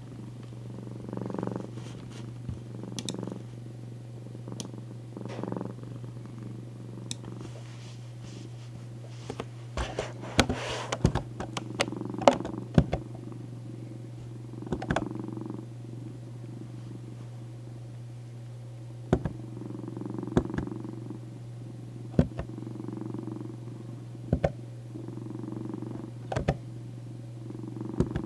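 Domestic cat purring close up, the purr swelling and fading with each breath every couple of seconds, over a steady low hum. Scattered sharp clicks come in from about ten seconds in.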